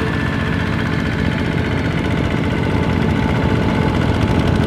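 Single-cylinder Kubota ZT diesel engine of a two-wheel walking tractor running steadily, with a rapid, even chug of firing beats.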